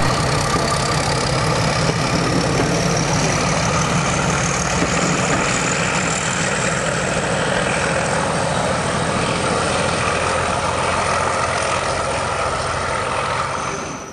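Class 31 diesel locomotive's English Electric V12 engine working hard as it hauls its train past, a loud steady engine note with a thin high whine that rises slowly in pitch. The sound cuts off suddenly near the end.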